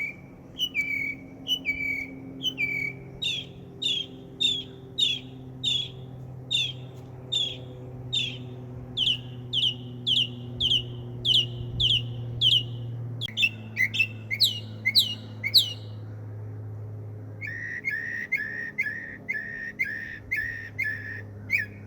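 A songbird singing a long string of short whistled notes, each note type repeated many times before it switches to another, with a short pause about two thirds of the way through; the speaker takes it for a mockingbird. A steady low hum runs underneath.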